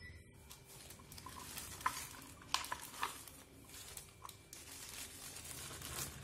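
Plastic sheet rustling and crinkling as a pressed rice-flour chekka is peeled off a hinged metal press, with a few sharp clicks and taps of metal on metal.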